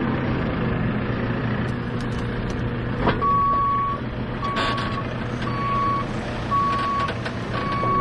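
A JCB's diesel engine running steadily. About three seconds in there is a click, and the machine's reversing alarm starts: a single steady tone beeping about once a second, five times.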